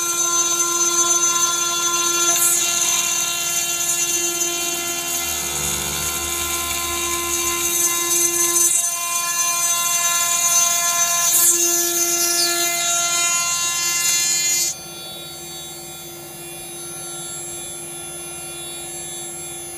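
CNC router spindle turning a 3.175 mm single-flute end mill at 16,000 rpm, milling aluminium, with a steady whine over a bright high hiss from the cut. About three-quarters of the way through, the cutting hiss stops abruptly and a quieter, steady spindle whine continues.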